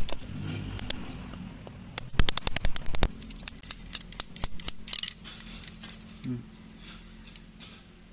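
Small metal clicks and clinks of tools and parts being handled, with a dense run of sharp clicks in the middle few seconds.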